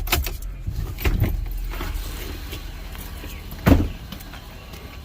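Metal folding chair being handled and thrown into a truck bed. A few knocks and clanks come in the first second and a half, then one loud clank about three and a half seconds in, over the low steady hum of a vehicle engine running.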